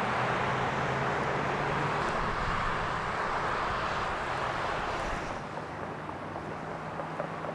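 A steady motor hum with a rushing noise over it, both dropping away about five and a half seconds in.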